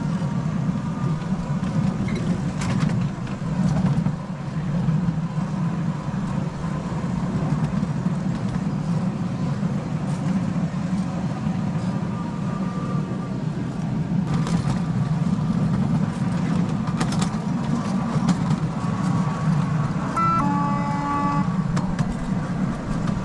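Ride-on miniature train running on a ground-level track, a steady low rumble of the ride, with a brief horn-like toot about twenty seconds in.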